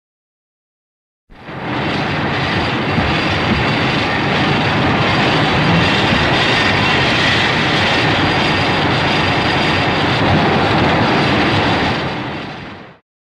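A sound effect: a dense, steady rushing noise with no clear pitch that starts suddenly about a second in, holds for about eleven seconds, and fades out near the end.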